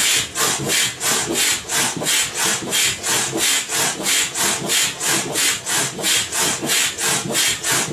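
Bravo 9 foot pump being worked steadily, each stroke pushing out a rush of air in a fast, even rhythm of about four hisses a second.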